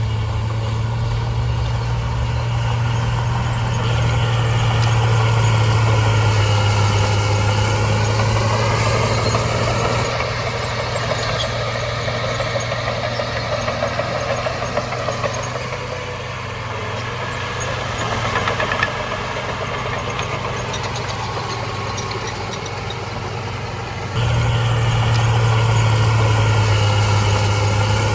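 Heavy earthmoving machine's diesel engine running, its pitch and load rising and easing, with scattered light clanks and rattles in the middle; the sound jumps suddenly louder about 24 seconds in.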